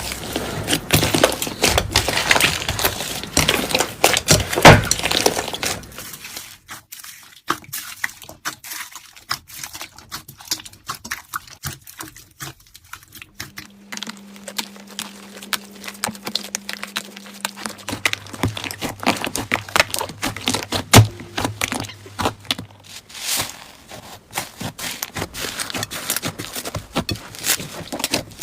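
Slime being squeezed and poked by hand: a dense run of crackling, popping clicks, loud for about the first six seconds, then softer and sparser.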